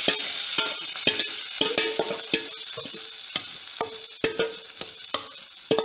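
Hot coconut-oil tempering of mustard seeds and curry leaves sizzling in a clay pot as thick curd-and-pineapple pachadi is scraped in from a steel bowl, the sizzle dying down as the mixture covers the oil. A wooden spoon knocks repeatedly against the steel bowl, some knocks ringing briefly.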